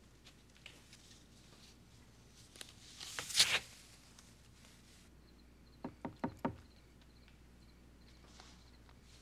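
A brief loud rushing scrape about three seconds in, then four quick knocks on a wooden door a few seconds later.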